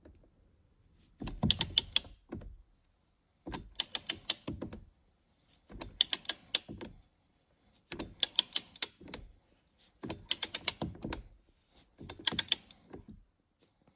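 Ratchet wrench with a 21 mm socket clicking in six bursts about two seconds apart, each a quick run of clicks as the handle swings back between pulls. It is loosening a car steering wheel's centre retaining bolt.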